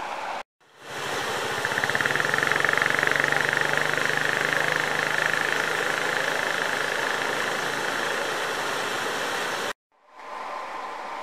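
Loud, steady rush of water pouring through a concrete culvert. It starts suddenly about a second in and cuts off near the end, with a quieter even hiss of moving water either side.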